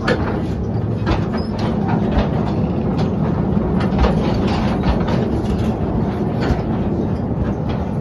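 Mine-train ride cars rolling along their track: a steady low rumble with irregular clattering clicks and knocks from the wheels and cars.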